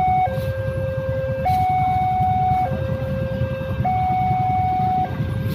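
Railway level-crossing warning alarm from the loudspeaker on the signal pole: a two-tone electronic signal alternating between a lower and a higher note, each held about 1.2 seconds, sounding because the crossing is closed for an approaching train. Under it is the low rumble of waiting motorcycle and car traffic.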